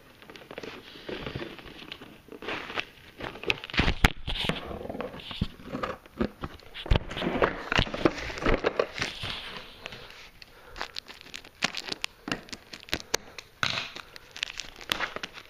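Plastic packaging bags crinkling and crackling as they are handled and cut open with scissors, with many short sharp clicks and snaps at irregular intervals.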